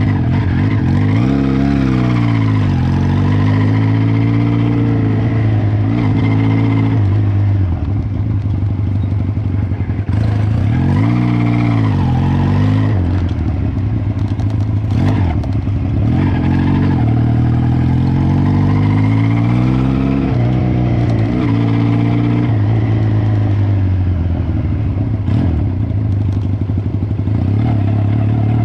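Cafe racer motorcycle engine heard on board while riding off-road: its pitch rises and falls again and again with throttle and gear changes. A few sharp knocks and clatter come through about halfway.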